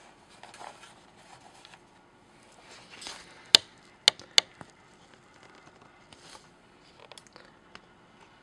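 Faint rustling and handling noise, with three sharp clicks in quick succession around the middle and a few lighter ticks later.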